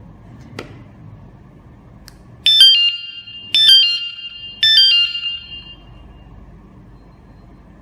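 KS-SF22R vehicle alarm sounding a falling three-note chime (mi, re, do) three times, about a second apart: the signal that holding the arm button has put it into sensitivity-adjustment mode.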